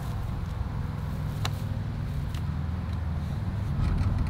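Low, steady hum of an idling engine, with one sharp click about a second and a half in.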